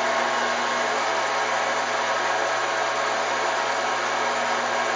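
Emco Super 11 CD metal lathe running at a steady speed, its spindle and drive giving an even whir with several held tones.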